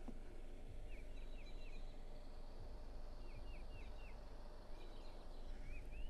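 Faint outdoor background with a low steady rumble and a small bird calling: two quick runs of four short, high chirps, and a couple more near the end.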